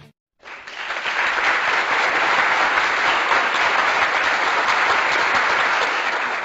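Applause: many hands clapping steadily, starting about half a second in.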